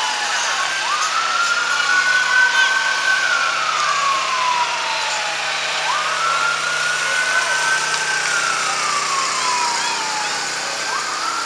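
Emergency-vehicle siren sounding a slow wail, its pitch climbing and sinking in a cycle about every five seconds.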